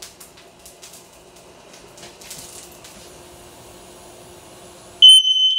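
Garlic sizzling faintly as it fries in cooking oil. About five seconds in, an Aegislink photoelectric smoke alarm goes off, set off by the frying smoke, with a sudden loud, high-pitched steady beep.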